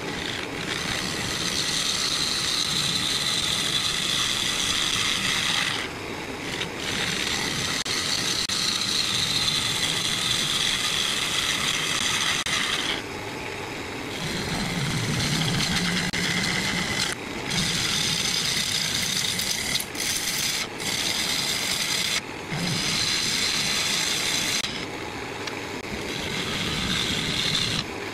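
A gouge cutting a spinning ash bowl blank on a wood lathe: a steady hissing scrape as shavings come off the wood, broken several times by short pauses as the tool is eased off the cut.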